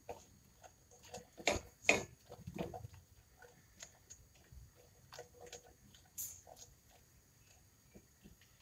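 Silicone spatula stirring onion wedges and garlic cloves around a stainless steel pot: irregular soft knocks and scrapes, loudest twice about one and a half to two seconds in.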